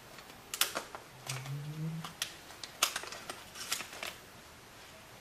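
Scissors snipping and packaging being handled while a parts box is cut open: a string of sharp snips and clicks. A person gives a brief rising hum about a second and a half in.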